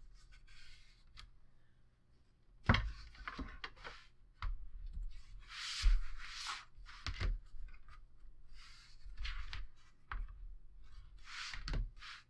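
Patterned paper being folded over a chipboard cover and rubbed down with a bone folder: irregular dry scraping and rubbing swishes, with a few sharp knocks on the table, the loudest about three and six seconds in.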